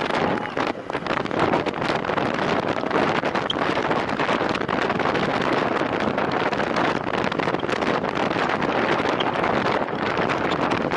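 Steady rush of wind over the microphone of a camera riding along on a time-trial bike at race speed.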